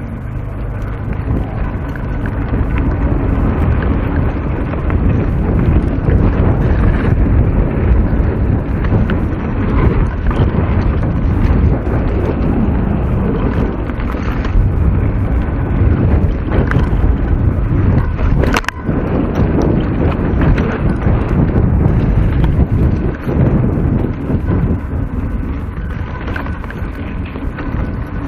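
Wind buffeting the microphone over the continuous rumble and rattle of a mountain bike riding singletrack, with one sharp click about eighteen and a half seconds in.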